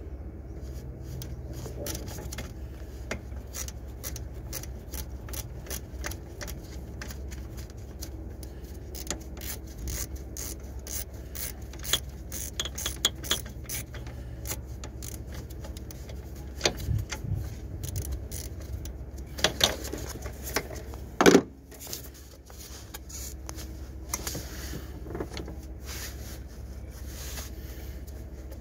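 Irregular clicks, knocks and rubbing from a gloved hand working by feel deep in a car's engine bay while an alternator is taken out, over a steady low hum. The loudest knock comes about two-thirds of the way through.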